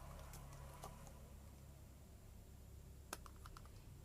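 Faint, sparse plastic clicks and taps from handling a RAM module and its plastic packaging, with a sharper click about three seconds in followed by a quick run of small ticks.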